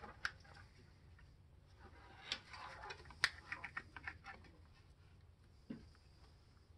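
Faint, scattered clicks and light taps of the Saab 9-3 2.0 turbo's fuel injectors and fuel rail being handled and worked down into the intake manifold ports, most of them bunched together near the middle, with one sharper click.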